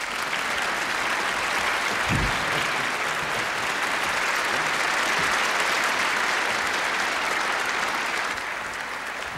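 A large theatre audience applauding steadily, with one brief low thump about two seconds in. The applause eases a little near the end.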